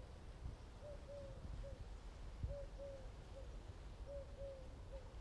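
A dove cooing, a three-note phrase repeated about every one and a half seconds, over a low background rumble.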